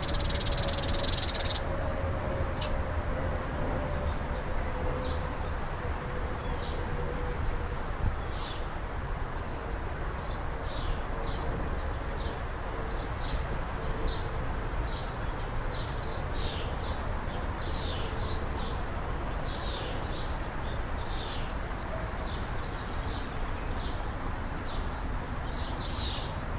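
Small birds chirping, short high calls repeated at irregular intervals, over steady low outdoor background noise. A brief loud hiss sounds in the first second or so.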